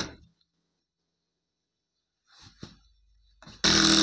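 Sewing machine stitching stops just after the start, and after a quiet pause with faint fabric handling it starts running again in a burst near the end.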